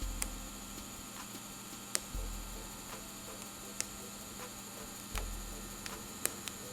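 Steady electrical hum with a faint high whine, broken by about five light, sharp clicks and a few short low thumps from handling.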